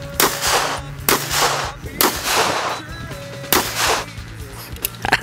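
Four handgun shots, about a second apart with a longer pause before the last, each trailing off in a long echo, over background music with a steady low tone.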